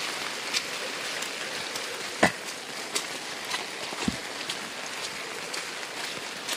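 Steady rain falling, an even hiss with many scattered drop taps; a sharper tap comes about two seconds in and a low thud about four seconds in.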